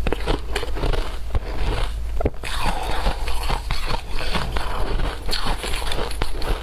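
Shaved ice being bitten and chewed: a dense, continuous run of crackling crunches with no pauses.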